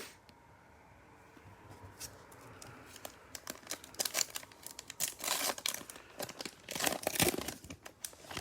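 Topps Chrome trading-card pack wrapper being torn open and crinkled by hand: a quiet start, then irregular crackling from a few seconds in.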